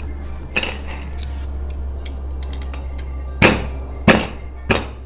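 An aluminium pressure cooker's lid and clamp being fitted and tightened: four sharp metal knocks, the loudest about three and a half seconds in. A steady low hum runs underneath.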